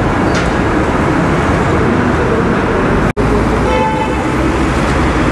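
City street traffic noise, a steady rush of passing cars. It cuts out for an instant just past three seconds, and a brief pitched tone sounds about four seconds in.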